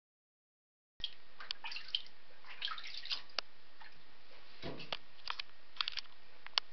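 Shallow bathwater lapping, with small splashes and drips as a blood python swims through it in the tub. Many sharp little plops and clicks are scattered over a steady background, starting suddenly about a second in.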